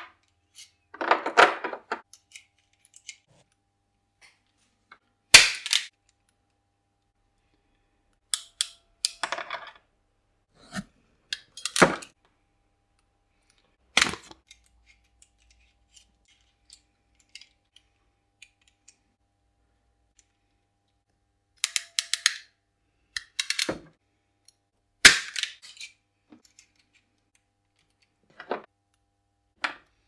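A ratcheting crimping tool and its metal crimp dies being handled as the dies are taken out and fitted. It gives about a dozen separate clicks and short clatters, spread out with silent gaps between them.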